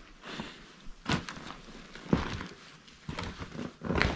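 Footsteps on a wooden floor strewn with broken boards and debris, about one step a second, each a short knock with a crunch of rubble underfoot.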